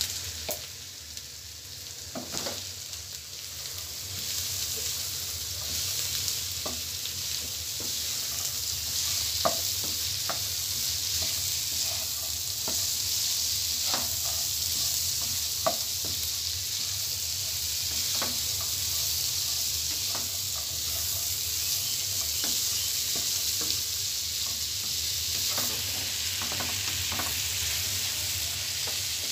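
Boiled chickpeas and shredded cabbage frying in oil in a non-stick wok: a steady sizzle that swells over the first few seconds as the chickpeas go in, with scattered scrapes and taps of a wooden spatula stirring.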